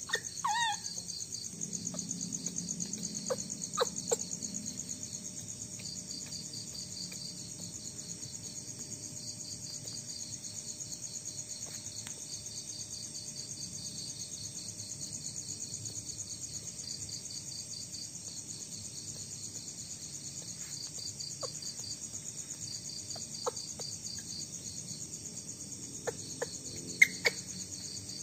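Night insects trilling steadily in a high, finely pulsing chorus. A short falling squeak comes about half a second in, and a few sharp clicks stand out, the loudest near the end.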